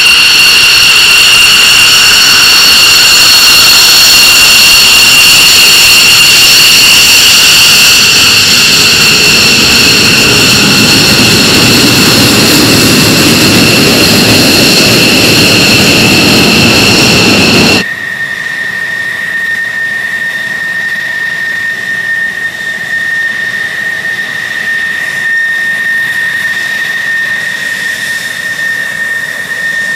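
The twin turbofan engines of an F-15 Eagle run with a loud, steady, high whine as the fighter rolls along the runway. About eighteen seconds in the sound cuts off sharply to a quieter, steady single-tone whine of the F-16 Fighting Falcon's jet engine idling.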